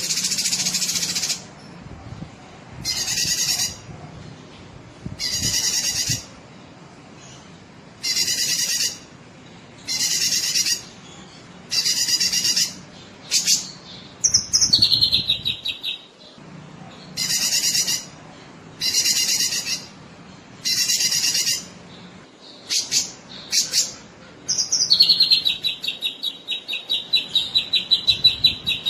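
Cucak kinoi singing in full song: short high phrases about every two seconds. Twice the phrases break into a longer rapid trill that drops in pitch.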